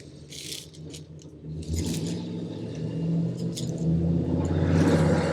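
An engine running with a steady low hum that grows louder over the last couple of seconds, with light metallic clicks and clinks over it.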